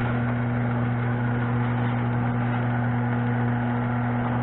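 Craftsman chain-drive garage door opener's electric motor running with a steady hum as it drives the door down, its worn drive gear newly replaced.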